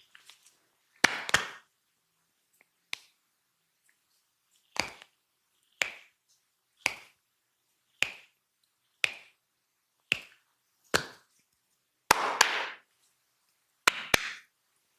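Hands striking the body in percussive massage strokes: sharp slaps about once a second, with quick double strikes near the start and near the end.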